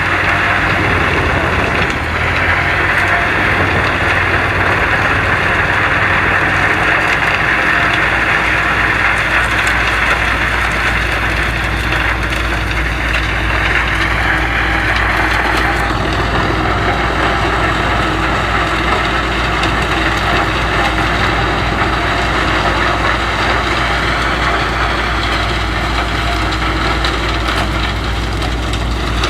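Wood chipper running under load, its engine steady while wood is chipped and splintered in the feed with a dense crunching noise. The chipping noise shifts partway through.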